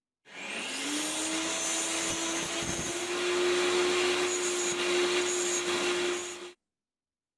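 Bench-mounted angle grinder spinning up, its whine rising in pitch over the first second, then running steadily at full speed before cutting off suddenly near the end.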